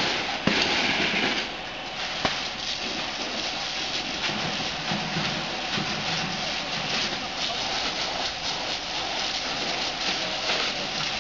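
Fire hose spraying water onto smouldering, burnt debris: a steady hiss of spray with scattered crackling.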